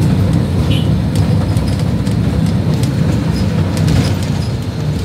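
A moving city bus heard from inside the cabin: a steady low rumble from the engine and road, with many small clicks and rattles from the bus body and fittings.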